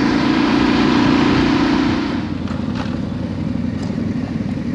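Yamaha Ténéré 700 World Raid's parallel-twin engine running at road speed with wind and road noise, then about two seconds in the throttle closes and the engine drops to a lower, quieter note as the bike slows down.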